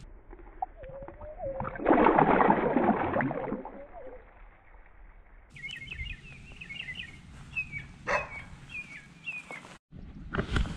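A largemouth bass splashing in shallow pond water as it is let go, one loud splash about two seconds in. Later, small birds chirp repeatedly.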